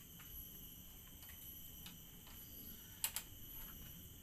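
A few light ticks, then two sharp clicks close together about three seconds in, over a faint steady high-pitched insect drone.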